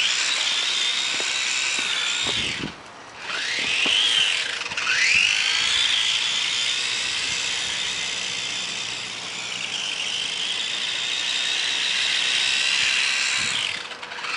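Electric motor of a radio-controlled car whining at high pitch as the car drives. It cuts out briefly about two seconds in, then climbs in pitch twice as the car accelerates again, holds a steady whine, and falls off near the end.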